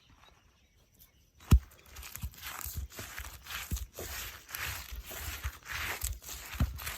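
Mullu murungai leaves being ground by hand on a grinding stone: a sharp knock about a second and a half in, then rough scraping strokes, about two a second.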